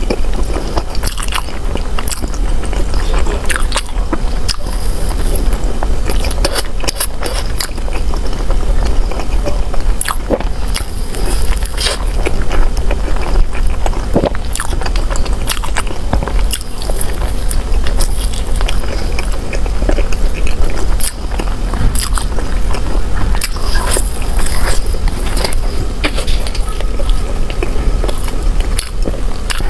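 Close-miked biting and chewing of bread, with many short mouth clicks and smacks over a steady low hum.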